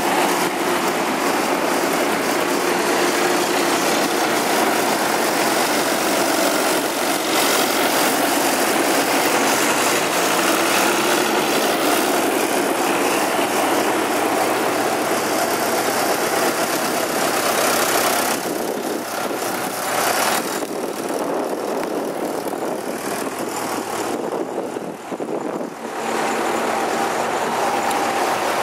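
Vintage tractor engines running as tractors drive past on the road, a small grey Ferguson going by near the start; the engine sound eases a little in the second half.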